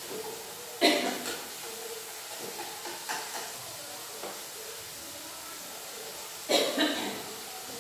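Food sizzling in a pan on a gas stove, a steady hiss, broken twice by a loud clatter of cookware and utensils: once about a second in and again near the end.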